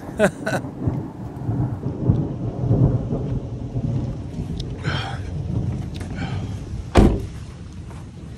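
Rain falling with a steady low rumble of a thunderstorm, and a single sharp knock about seven seconds in.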